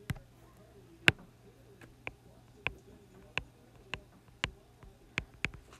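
A stylus tip tapping and clicking on a tablet's glass screen while digits are handwritten: about ten short, sharp clicks at irregular spacing, the loudest about a second in.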